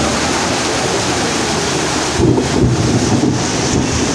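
Heavy tropical downpour in a thunderstorm, the rain hissing steadily, with a low rumble swelling about two seconds in.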